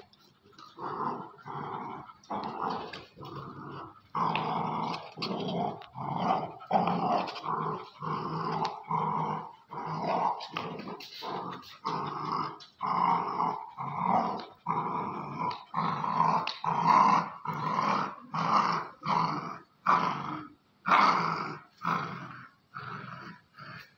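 Young American Pit Bull Terriers growling in play while tugging on a ring toy. It is a long run of short growls, a little more than one a second, with brief gaps between them.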